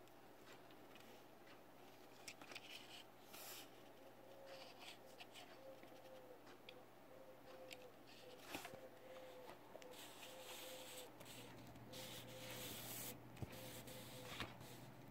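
Faint handling noise: fingers rubbing and tapping a small die-cast toy car on paper, with scattered light clicks and scrapes. Under it, from about four seconds in, a faint short tone repeats a little more than once a second.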